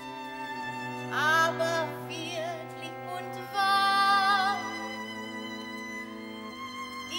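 Operatic aria: a female voice sings two wavering, vibrato-laden phrases, about a second in and around four seconds in, over held string chords.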